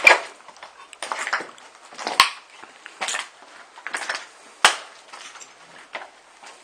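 Footsteps of several people crunching over debris on a hard floor, about one step a second, with two sharp cracks of something snapping or breaking underfoot.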